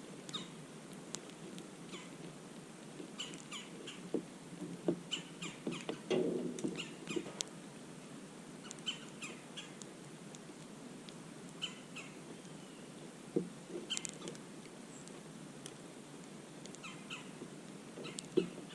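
Small birds at a feeding spot giving short, high chirps in little clusters of two to four notes, with scattered faint clicks in between.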